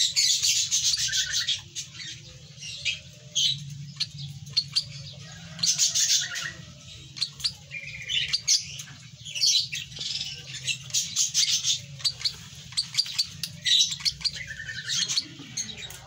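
Hand-fed lovebird chick giving rapid, high begging chirps in bursts while it is syringe-fed porridge, a sign that it is hungry. A steady low hum runs underneath.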